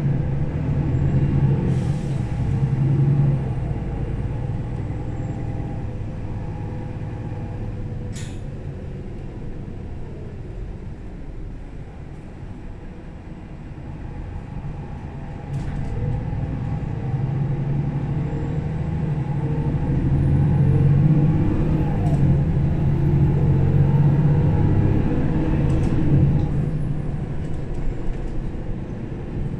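Mercedes-Benz O530 Citaro city bus heard from inside while driving: the diesel engine runs with a low rumble that eases off for a few seconds, then grows louder again as the bus pulls away. Several short, sharp air hisses cut in along the way.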